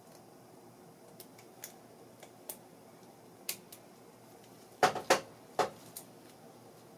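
Light metallic clicks and ticks from a Briggs & Stratton valve spring compressor tool being worked by hand as a valve spring is loaded into it, with three sharper metal clicks close together about five seconds in.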